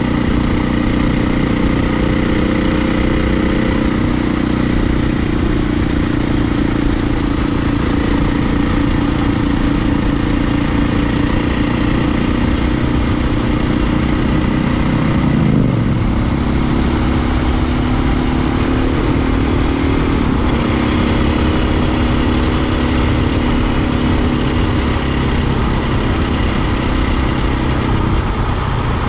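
Husqvarna dirt bike's engine running steadily at cruising speed while riding, with wind noise over the microphone. The engine note briefly drops and picks up again about halfway through.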